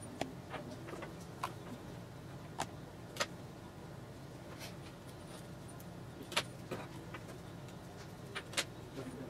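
Scattered sharp clicks and light taps, about ten in all, as hookup wire and a small screwdriver are worked into a screw terminal block on a circuit board, over a steady low hum.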